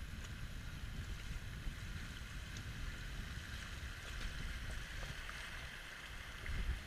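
Steady rush of river water, with wind rumbling on the microphone and a few faint clicks.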